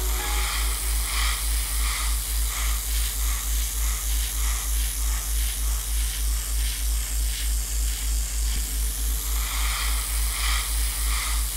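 Steady hissing over a fast, even low pulsing, several beats a second, like a small motor or compressor running.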